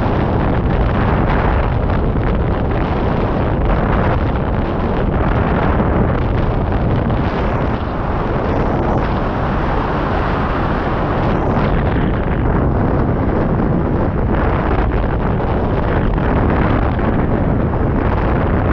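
Steady, loud rush of wind on the microphone of a camera mounted on a Wills Wing Sport 2 155 hang glider in flight: airflow buffeting past at flying speed.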